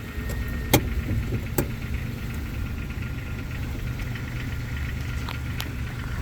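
Jeep engine idling steadily, with two sharp knocks about a second in.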